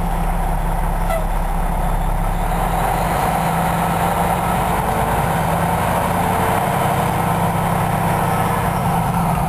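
Diesel engine of a 2008 Pierce Arrow XT fire engine pumper running steadily as the truck rolls slowly, heard from inside the cab.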